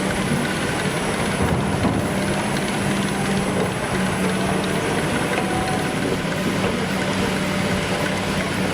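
A heavy machine's engine running steadily under a dense mechanical noise, with a low hum that wavers slightly in pitch.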